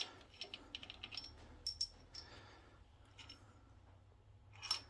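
Light metallic clicks and clinks of engine parts and hand tools being handled during an engine teardown, a quick run of them in the first two seconds and a few more later.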